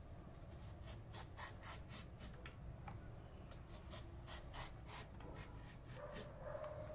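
Zucchini drawn over a handheld plastic julienne grater, cutting it into thin strands: faint, quick scraping strokes, two or three a second, in short runs.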